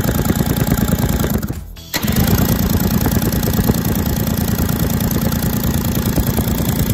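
2001 Yamaha 40 hp two-stroke outboard spun over on its starter with the cylinder head off, a fast even cranking chatter with no compression strokes. The cranking stops briefly under two seconds in, then starts again and runs steadily. It is being cranked to see whether cooling water flows out of the cylinder water inlets.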